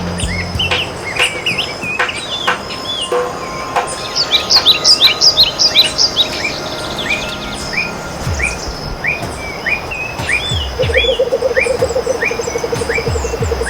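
Several forest birds calling and singing: a loud run of quick falling notes about four seconds in, then a short rising chirp repeated about twice a second through the rest. A low buzzing trill joins near the end.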